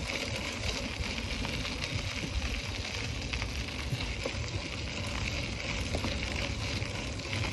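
Bicycle riding along a woodland trail: the steady noise of tyres rolling over the path, with a low wind rumble on the microphone.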